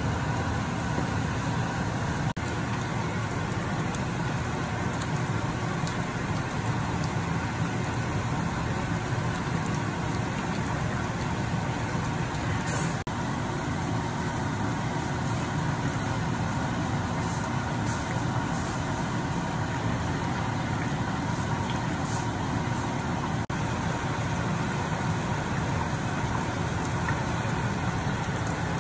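Steady low mechanical drone, like a running fan, with two brief dropouts.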